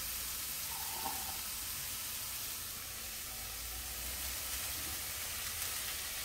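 Shredded vegetables sizzling in oil in a nonstick frying pan over high heat: a steady, even hiss.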